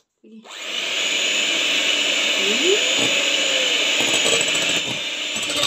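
Electric hand mixer switching on about half a second in and then running steadily, its twin beaters whisking egg-white meringue in a glass bowl.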